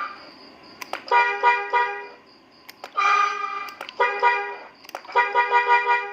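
Electronic horn module (klakson) sounding through a 20-watt horn loudspeaker: four loud, crisp multi-tone horn blasts with a click before each, the last one broken into quick pulses. A faint steady high whine runs underneath.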